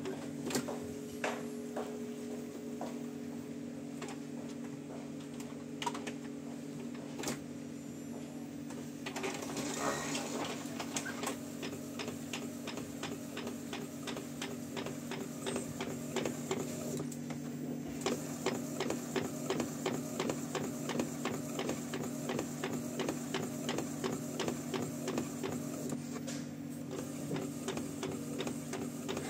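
Epson L565 inkjet printer printing: the print-head carriage shuttling across the paper over a steady motor hum. About a third of the way in, a rapid, even ticking of about three strokes a second sets in and keeps on.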